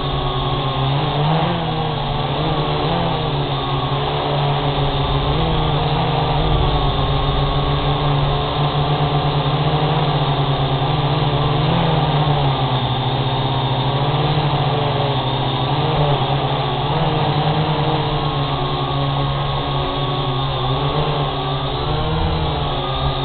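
Syma X8G quadcopter's motors and propellers buzzing steadily in flight, the pitch wavering up and down as the throttle changes.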